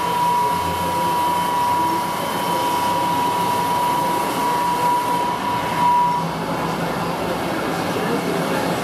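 Steady drone of shop machinery running, with a steady high whine that cuts off about six seconds in and a low hum that comes in about half a second in.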